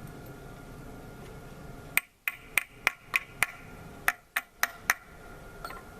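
Sharp, bright hammer taps, a run of six about three a second, then after a short pause four more.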